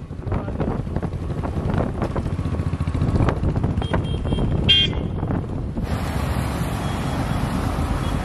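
Royal Enfield Bullet's single-cylinder engine running as the motorcycle rides by with its sidecar. A vehicle horn toots briefly about halfway through.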